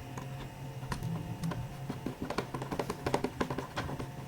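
Screws being driven into a laptop's plastic chassis with a small screwdriver: light, irregular clicks and taps, coming thicker in the second half.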